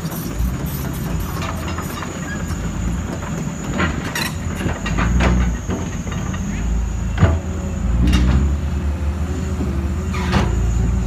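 Diesel engines of heavy dump trucks running and manoeuvring, a steady low rumble, as a tipper truck backs up close by. Several sharp clanks and rattles sound over the rumble, the loudest about seven seconds in.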